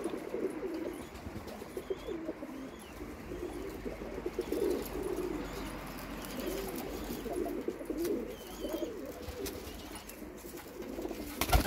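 Several domestic pigeons cooing, one low warbling coo after another and overlapping.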